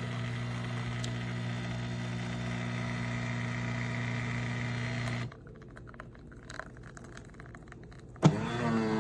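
Automatic espresso machine's pump or grinder motor running with a steady electric hum that cuts off after about five seconds, followed by faint crackling and clicks. Near the end a sharp click starts the hum again, its pitch settling as it comes up to speed.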